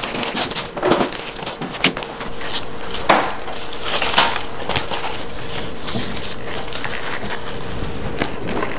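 Kitchen-counter food-prep handling: a spoon clinking and scraping in a metal bowl of filling, the rustle of tofu-skin sheets, and light knocks on bamboo steamer baskets, in scattered clicks. A steady background noise comes up about two seconds in.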